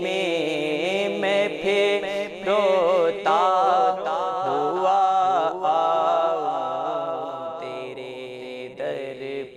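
Solo male voice reciting an Urdu naat in a chant-like, melismatic melody with long gliding notes, over a steady low hum. The voice softens near the end.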